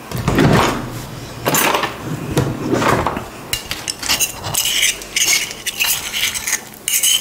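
White ceramic plates knocking and scraping against each other as they are handled, in a string of short clinks and scrapes.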